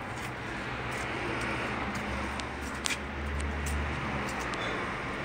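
Steady street background noise, with the low rumble of a motor vehicle for a couple of seconds midway and a few light ticks.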